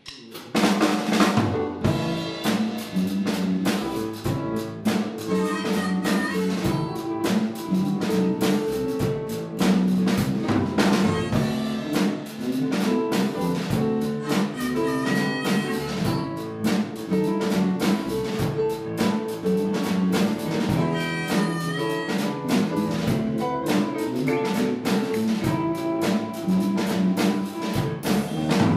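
Blues band playing, the drum kit up front with snare and bass drum hits, electric bass and other instruments under it. It starts abruptly right at the start.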